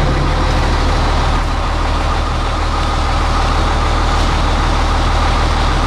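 Volumetric concrete mixer truck's engine idling steadily with a low, even hum.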